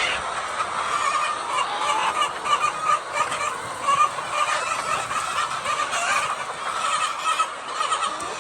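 A large flock of hens calling continuously, many short overlapping calls at once.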